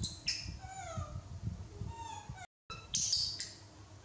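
Young macaque monkeys giving a series of short, high, squeaky calls that mostly glide downward in pitch, the loudest about three seconds in.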